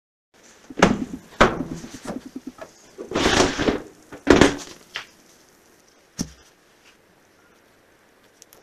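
Oven door and metal baking pan knocking and clattering: a few sharp knocks and a rattling scrape, then one low thump a little after six seconds in as the pan is set down on a wooden tabletop.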